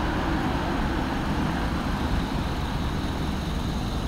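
Steady rumble and road noise of a vehicle driving slowly along a street, heard from the vehicle's own recorder.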